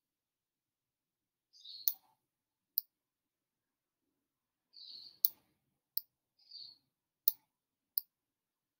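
Computer mouse button clicking in three press-and-release pairs, each button hold lasting under a second as a brush stroke is dragged, with a short soft rustle just before each press.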